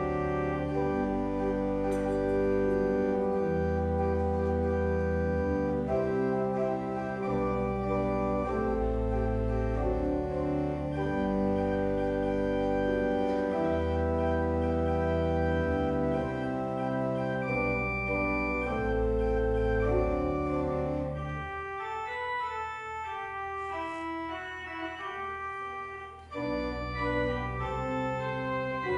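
Church organ playing slow music of held chords over long sustained pedal bass notes. About three-quarters of the way in the bass drops out for a quieter, higher passage, then comes back near the end.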